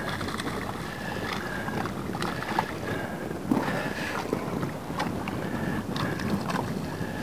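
Wind buffeting the microphone over water lapping and splashing beside a small fishing boat as a hooked bonefish thrashes at the surface. A short high whir repeats about twice a second, from a spinning reel being cranked to bring the fish in.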